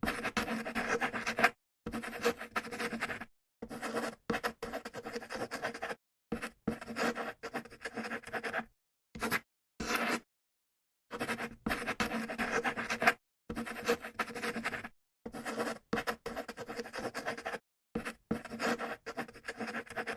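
Pencil scratching on paper in irregular bursts of writing, each burst cut off sharply into dead silence before the next.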